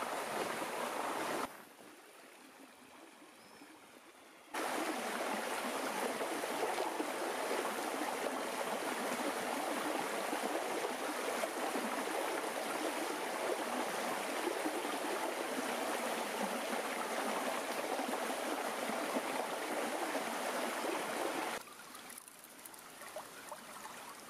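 Shallow woodland stream running over rocks between ice and snow, a steady rushing babble; it has been flowing again since a thaw. It falls to a faint hush for a few seconds just after the start and again near the end.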